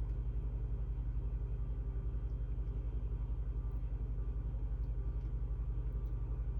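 A steady low rumbling hum, pulsing rapidly several times a second, with nothing else standing out.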